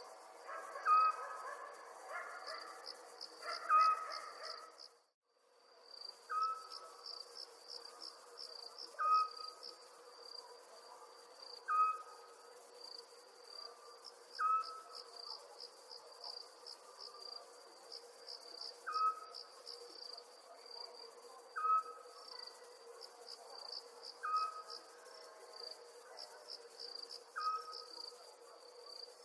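Night chorus of crickets chirping in a steady high trill with quick pulses. A lower, short call from another night animal repeats about every two to three seconds over it. The whole chorus drops out briefly about five seconds in.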